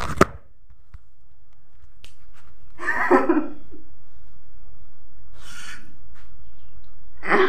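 A few short, isolated vocal sounds from a person over a steady low background rumble: a click just after the start, a brief voice-like burst about three seconds in, and a short breathy hiss a couple of seconds later.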